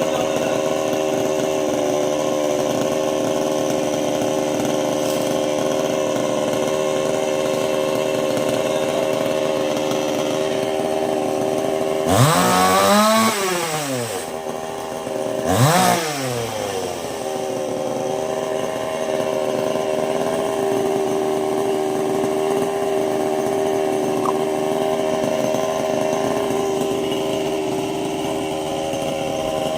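Chainsaw running steadily at high speed. About halfway through it is revved up and dropped back twice in quick succession, then settles back into its steady run.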